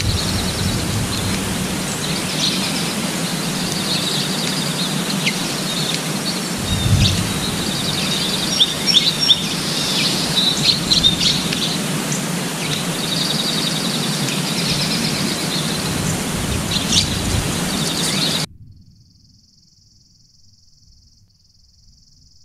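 Wild birds chirping and trilling over a steady outdoor hiss, with a few sharp chips in the middle. About eighteen seconds in it cuts to a much quieter background with a faint high, even buzz.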